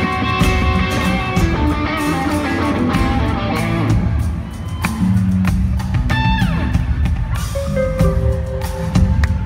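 Live country band playing an instrumental passage, with acoustic and electric guitars over a drum kit.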